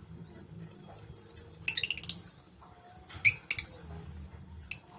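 Lovebird giving short, sharp, high-pitched chirps: a rapid cluster about two seconds in, another burst just past three seconds, and a single chirp near the end.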